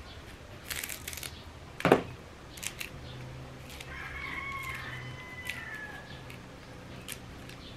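Moringa (malunggay) leaflets being stripped and snapped off their stems by hand into a plastic bowl: soft rustling with scattered small snaps, the sharpest about two seconds in. A faint drawn-out animal call sounds in the background in the middle, dipping in pitch at its end.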